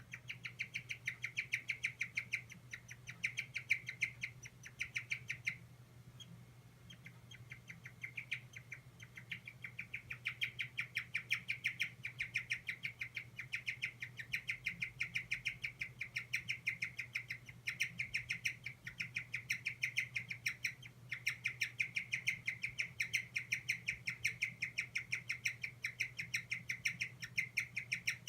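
Guinea pig squeaking: long runs of short, high squeaks several times a second, a 'kyu kyu kyu' cry that the owner takes as a sign of stress, with a short break about six seconds in.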